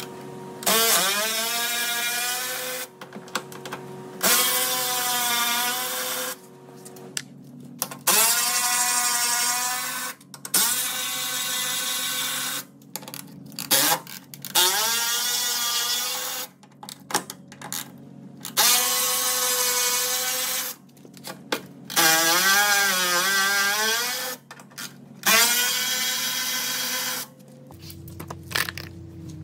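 Cordless electric ratchet with a Torx-type bit socket running in about eight short bursts. Each burst spins up with a rising whine and then holds steady as it works the fasteners on a truck's cab step.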